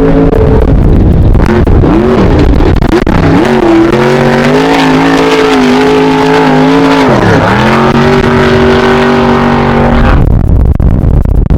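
Class 1 off-road race car engine running hard at high revs, its pitch dipping sharply about seven seconds in as the throttle comes off and climbing back, then giving way about ten seconds in to a low rumble.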